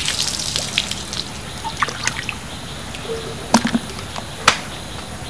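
Muddy water splashing and dripping as a small plastic scoop bails water out of a hole in the ground: a splash at the start, then scattered drips and trickles, with two sharper splats about halfway through.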